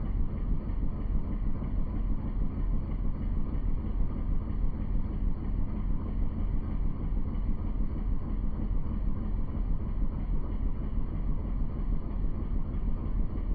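Steady low rumble of a moving boat, with wind buffeting the microphone.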